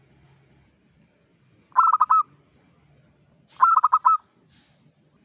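Zebra dove cooing: two short phrases, each a quick run of four or five stuttering notes, about two seconds apart.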